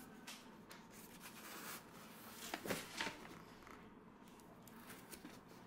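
Faint scraping and rubbing of things being handled, with a few light knocks, two louder ones close together about two and a half and three seconds in.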